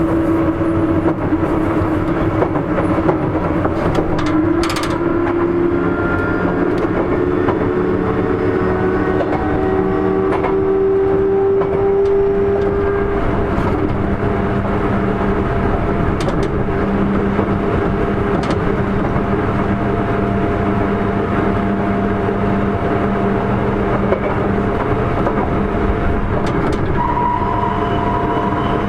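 Sotetsu 8000 series electric train running, heard on board. A steady rumble carries the tones of its Hitachi IGBT-VVVF inverter and traction motors. One tone rises slowly over the first dozen seconds, then the tones hold steady, and a higher tone joins near the end.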